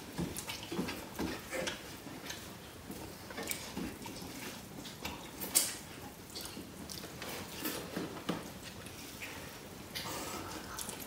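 Close-up eating sounds of dal bhat being eaten: wet chewing and mouth smacks with irregular small clicks, one sharper click about five and a half seconds in.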